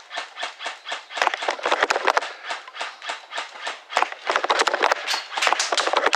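Quick footsteps of a person running over rough ground, a steady run of short crunching steps, closer together after about a second.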